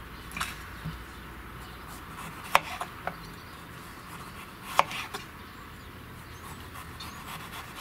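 Kitchen knife slicing through a raw carrot and knocking on a wooden cutting board: about five sharp taps a second or two apart, the loudest two each followed closely by a softer one.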